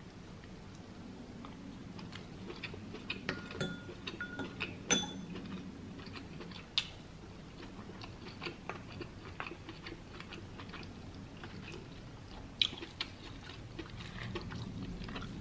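Close-up chewing and mouth smacks of a person eating, with scattered short clicks of a wooden spoon and fork against a frying pan.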